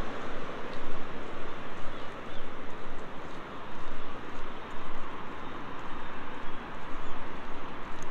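City street traffic on a multi-lane road: a steady hiss of passing cars and tyres with no distinct single event.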